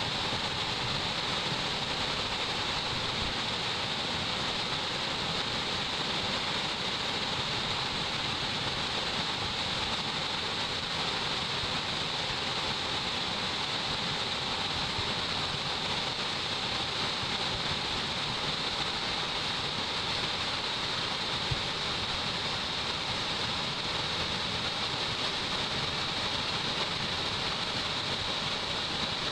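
Waterfall on a mountain stream: water falling and splashing in a steady, unbroken rush.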